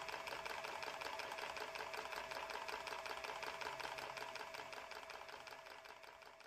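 Wooden blacksmith automaton running: its mechanism makes a rapid, even clatter of ticks over a steady hum, fading out near the end.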